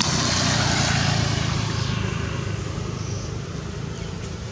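A passing motor vehicle: steady engine and road noise, loudest in the first second or two and then fading away.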